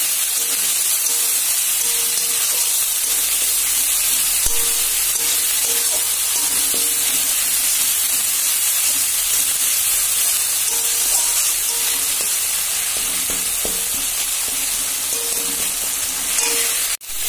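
Spice paste of onion, garlic, tomato and chilli sizzling in hot oil in a kadai, stirred with a metal spatula: the masala being fried down (kashano) until the oil separates. The steady sizzle cuts out for an instant near the end.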